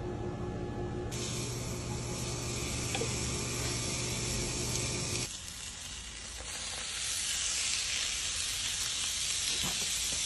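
Hot dogs and burger patties sizzling on the hot plate of a George Foreman electric grill; the steady hiss starts about a second in. A few light spatula taps come near the end.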